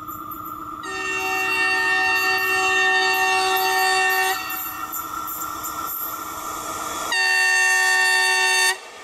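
An approaching electric locomotive sounds its multi-tone horn twice: a long blast of about three and a half seconds, then a shorter one of under two seconds near the end.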